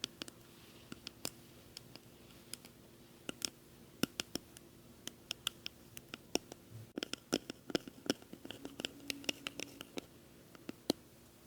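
Close-miked ASMR trigger sounds on a condenser microphone: irregular sharp clicks and scratchy crackles, sparse at first and thickening into a dense crackle for a few seconds past the middle, over a faint steady hum.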